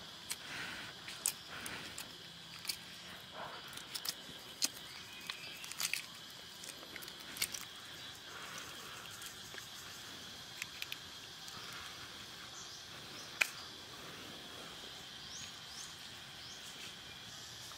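Sharp clicks and crackles of eggshell breaking as a grilled egg is peeled by hand, over a steady high drone of insects.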